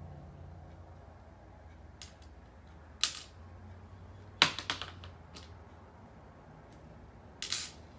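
Sharp clicks and taps of a pistol slide being handled while the screws of its optic cover plate are taken out: a single click about three seconds in, a quick cluster halfway through and a loud double click near the end.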